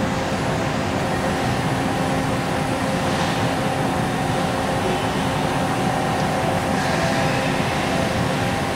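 Milltronic HBM4 horizontal boring mill running a tool change on its 60-station chain tool magazine: a steady mechanical drone with a few steady tones in it.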